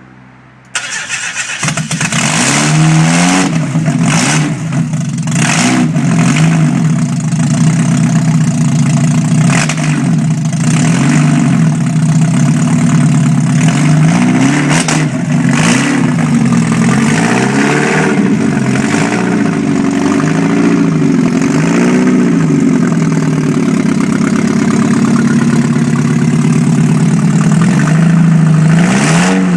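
A freshly rebuilt 1991 Mazda Miata's 1.6-litre four-cylinder engine starts about a second in, then runs loud on open headers with no exhaust, revved up and down again and again.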